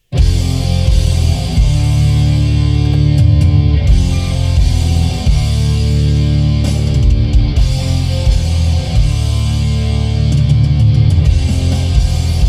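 Heavy metal music with electric guitars and drums, played loud through a 2014 Ford Flex's factory Sony premium stereo with its factory speakers and EQ set flat. It starts abruptly at the very beginning. It sounds a little boomy around 100 Hz, with not much high end.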